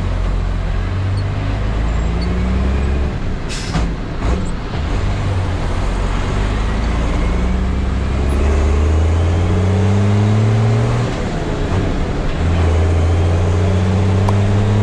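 Unimog diesel engine running through its new stainless-steel exhaust with raised stack, the truck pulling away with the engine note rising again and again in steps as it gathers speed. A short hiss comes about three and a half seconds in.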